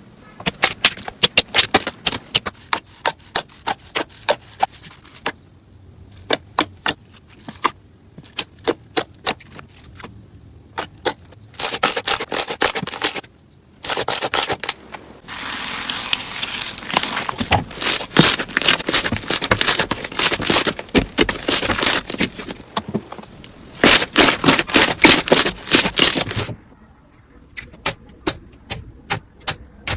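Slime being pressed and squeezed by hand, giving rapid crackling clicks and pops in runs separated by a few brief pauses.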